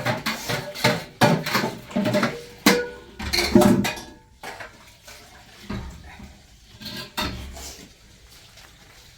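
Metal pots and utensils clattering: a quick, irregular run of knocks and clinks with short ringing, busiest in the first few seconds, then a few fainter knocks before it quietens.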